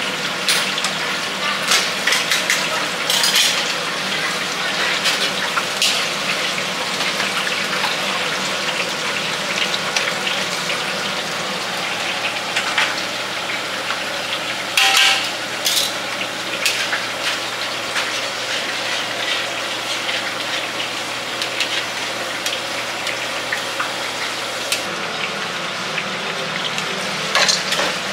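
Oyster fritters and fish deep-frying in a large wok of hot oil, sizzling and bubbling steadily, with a few sharp clinks of metal tongs and utensils.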